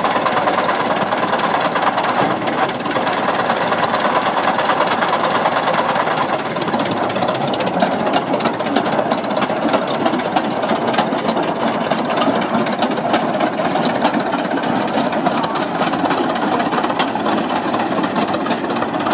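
Early Holt crawler tractor's large open engine running steadily with a fast, even mechanical clatter.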